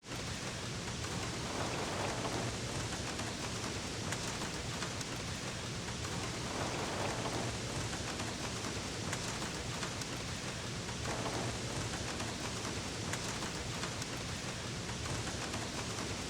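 Heavy, steady rainfall, a dense hiss of drops pattering on surfaces, with a few soft swells. It cuts in abruptly out of silence.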